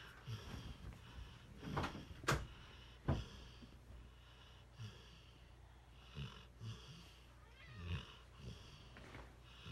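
Large mastiff-mix dog snoring in its sleep, with uneven breaths and low grunts. Three sharp clicks about two to three seconds in are the loudest sounds.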